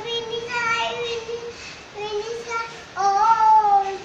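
A small girl singing on her own, a string of held sung notes with short breaks between them; a louder phrase rises in pitch about three seconds in.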